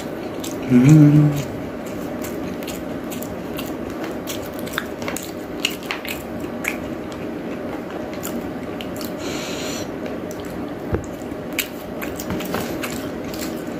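Close-up eating sounds: chewing, with chopsticks clicking and tapping against a plastic food tray. A short hummed "mm" comes about a second in, over a steady background hum.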